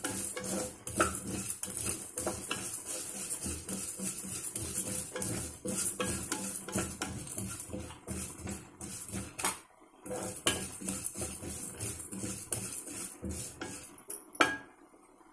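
Spatula stirring and scraping dry-roasting lentils and seeds (chana dal, urad dal, fenugreek) in a nonstick kadai, the grains rattling against the pan in quick strokes. It pauses briefly partway through, and a sharp knock sounds near the end.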